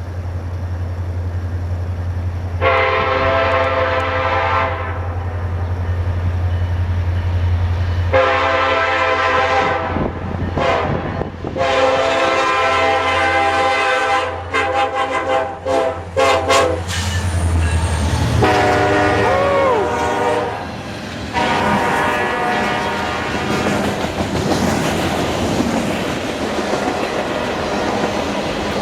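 Diesel locomotive's multi-chime air horn, sounded in five blasts of varying length over a steady low engine drone. Near the end the horn stops and the train's wheels rumble and clatter along the rails.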